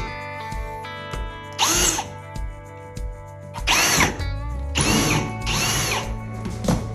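Power drill driving hinge screws, in about four short bursts that each spin up and wind down, the longest about a second.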